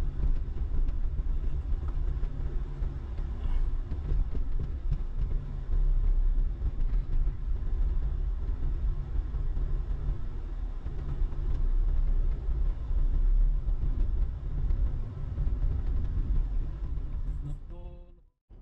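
Diesel vehicle on the move: a steady low engine and road rumble that cuts off abruptly near the end.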